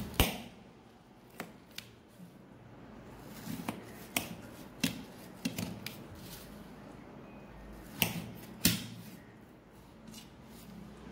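Kitchen knife cutting a round slice of watermelon into wedges: irregular sharp clicks and knocks as the blade cuts through the hard rind and strikes the metal plate beneath. The loudest knock comes just after the start, and two more come about eight seconds in.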